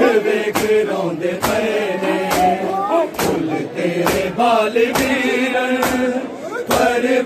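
A group of men chant a noha together in a gliding melody. Through it runs an even beat of sharp strikes, a little more than one a second, the rhythm of matam: mourners striking their chests with their hands.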